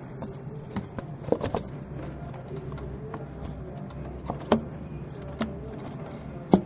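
A few sharp clicks and knocks, like small metal parts or tools being handled, over a steady low hum.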